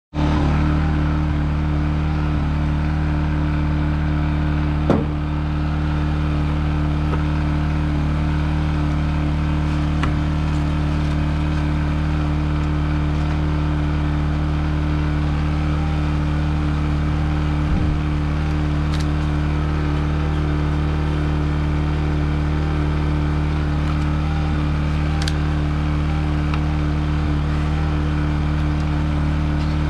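A motor running steadily with an unchanging hum, with a brief knock about five seconds in and another a little before eighteen seconds.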